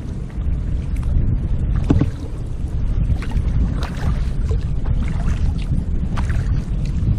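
Sea kayak paddling: paddle blades dip and splash into the water about once a second, over a steady low rumble.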